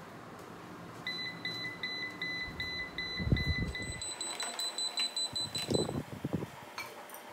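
Halogen air fryer's electronic beeper sounding a quick series of short beeps, about four a second, then a higher-pitched series; its fan hum stops about four seconds in. Knocks follow as the machine's hinged lid is handled and swung open.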